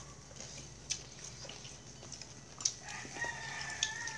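A rooster crowing once: a long held call starting about three seconds in. A few light clinks of dishes and cutlery come before it.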